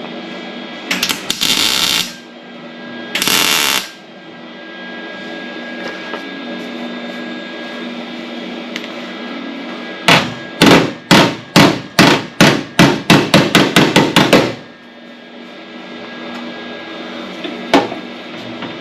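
Two short bursts of harsh noise near the start, then a quick run of about fifteen hammer blows on the sheet-metal cab corner of a 2002 Ford F-350, hammering the panel down smooth.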